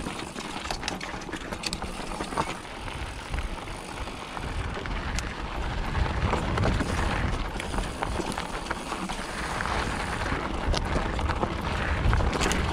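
Mountain bike ridden over a rough dirt and rock trail: tyre noise and a low rumble that grows louder after a few seconds, with scattered sharp clicks and rattles from the bike.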